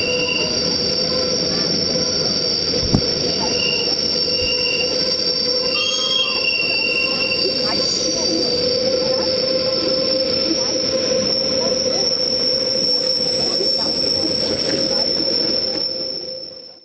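Steel wheels of a red Rhaetian Railway train squealing against the rails on a tight curve, high steady squeal tones over running rumble. There is one brief knock about three seconds in, and the sound fades out near the end.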